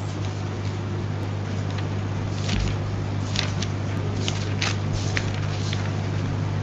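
Steady low electrical hum with hiss on the courtroom audio feed. A few short rustles of paper being handled come in the second half.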